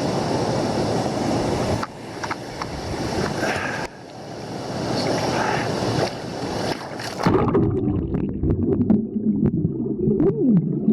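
Steady rush of falling water, with wind on the microphone, cut off sharply twice. About seven seconds in, the sound suddenly turns low and muffled, with small knocks and gurgles, as heard under water.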